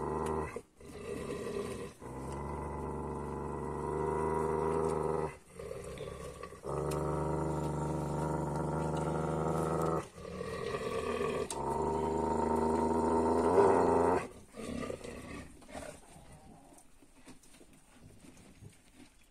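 A dog growling in long, deep, continuous rumbles, broken by a few brief pauses, loudest just before it stops about fourteen seconds in; after that only faint scuffling remains. It is a warning growl over food as dogs crowd a feeding bucket.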